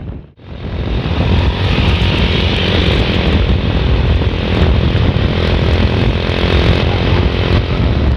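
Bus engine running with a steady loud rumble, with wind buffeting the microphone. The sound comes in after a brief drop-out at the start.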